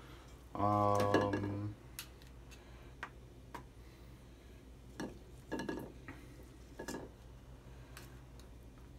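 Small metal spoons clinking against a stainless steel mixing bowl and a metal cookie sheet while cookie dough is scooped and dropped, a scattering of light clicks. A brief steady hum sounds about a second in.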